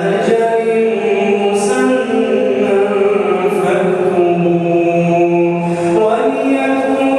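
A man's voice reciting the Quran in a slow melodic chant, holding long notes that shift in pitch, with an occasional hissing consonant between them.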